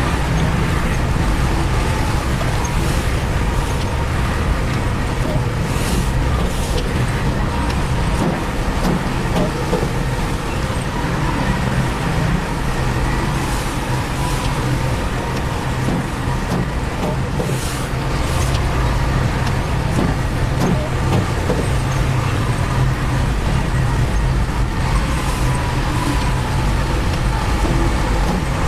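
Heavy construction machine's diesel engine running steadily, with a low drone and faint steady whine, and several brief high hissing sounds now and then.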